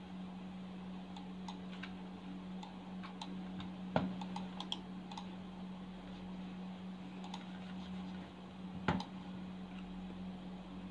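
Computer mouse and keyboard clicks: scattered light clicks with two sharper ones about four and nine seconds in, over a steady low hum.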